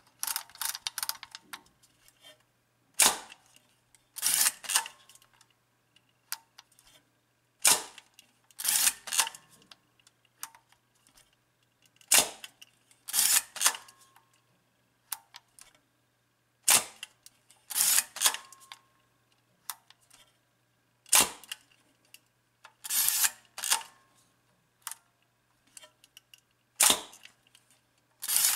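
Kiev 60 medium-format SLR being cocked and fired over and over: the sharp clack of the shutter and mirror, and the ratchet of the advance lever, repeating about every four to five seconds.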